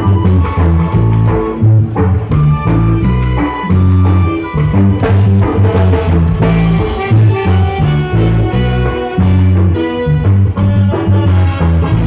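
Live reggae ensemble playing: a strong electric bass line with drum kit and congas keeping the beat, while flutes and saxophone play the melody.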